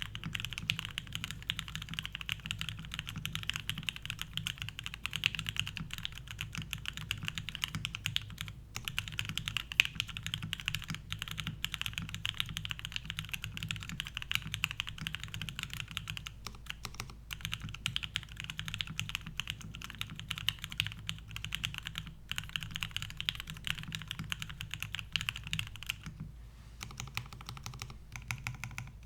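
Fast, continuous typing on a custom mechanical keyboard with lubed and filmed Gateron Ink linear switches on a full aluminum plate, with no foam, under thick PBT keycaps: a dense run of keystroke clacks with a few brief pauses.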